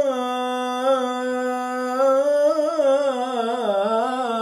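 A man's unaccompanied voice chanting the salâ into a microphone. He holds one long note, then winds through an ornamented run that dips lower about three and a half seconds in before settling back.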